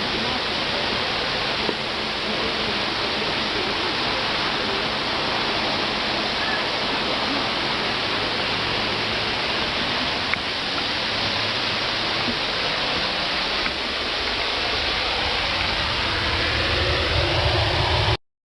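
Steady rushing of a waterfall, with a low rumble swelling louder over the last few seconds before the sound cuts off suddenly.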